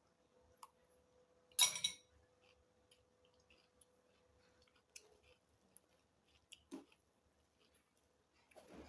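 Quiet close-miked eating sounds: chewing with scattered small clicks, and one short, louder burst about a second and a half in.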